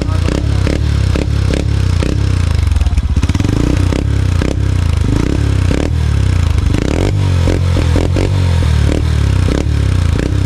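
Honda TMX 125 Alpha's single-cylinder four-stroke engine running loud through a stainless open 'chicken pipe' exhaust, with the revs rising and falling a couple of times as the throttle is blipped.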